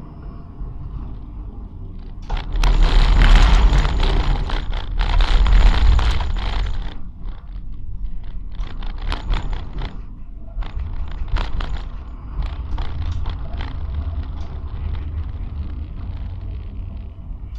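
Tram running on its rails. For about five seconds there is a loud rumbling and scraping of wheels on track, then it rolls on with a steady low rumble and a lot of irregular rattling and clicking.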